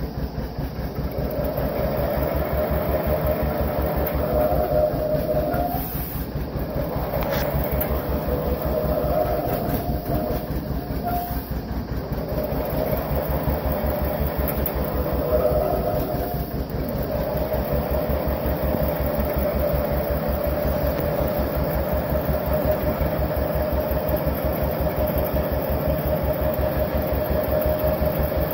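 John Deere 720 two-cylinder diesel engine running with a steady, even beat.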